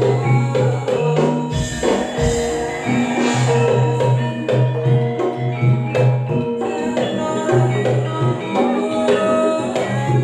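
Campursari music: a Javanese ensemble mixing gamelan-style metallophones and hand drums with sustained low notes, playing a steady, busy rhythm.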